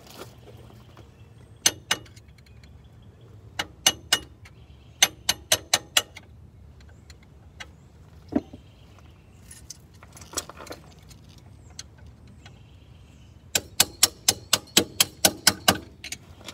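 Sharp metallic taps, singly and in quick runs, as a stuck steel strut bolt is knocked out by tapping its end with a metal tool. The longest run, about six taps a second, comes near the end.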